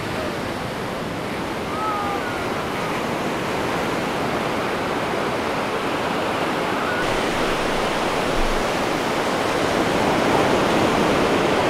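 Ocean surf washing onto a sandy beach: a continuous rushing noise that grows a little louder in the second half. Faint children's voices are heard about two seconds in.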